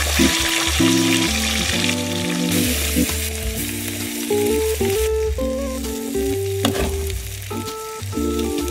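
Beef steak sizzling as it fries in hot oil and butter, the sizzle strongest over the first five seconds, under background music with a bass line and melody.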